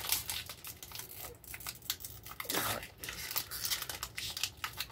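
Trading-card booster pack wrapper crinkling and tearing in irregular crackles as it is being pried open by hand.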